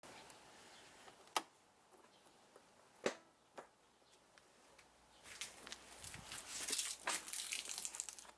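Handling noises while working on the scooter: a few sharp clicks or knocks, then about three seconds of rustling and scraping near the end.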